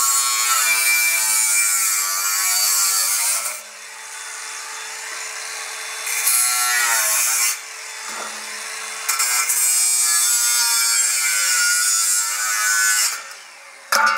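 Angle grinder cutting steel in three long spells, its whine dipping and rising as the disc bites. Between cuts the motor runs quieter, and there is a short sharp burst near the end.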